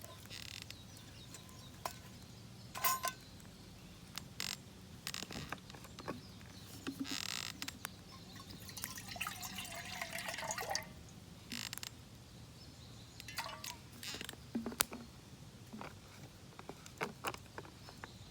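Scattered small clicks, clinks and rustles of camping gear being handled, with a longer rustling stretch about halfway through.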